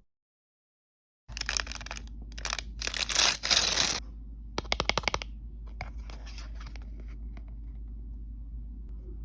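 Plastic blind-bag packaging being torn open and crinkled, starting about a second in, followed by a quick run of small clicks and then softer rustling.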